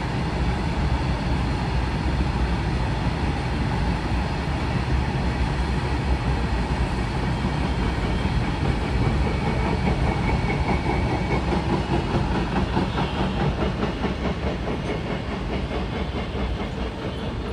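Freight train of open wagons rolling past, a steady rolling noise with a rhythmic clickety-clack of wheels over rail joints that becomes more distinct in the second half. The sound eases near the end as the brake van at the tail goes by.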